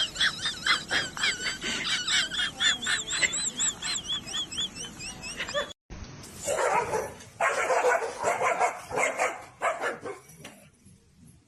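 A rapid run of short, high-pitched squeaky calls. Then, after a cut, a dog barking in a series of bursts that fade out near the end.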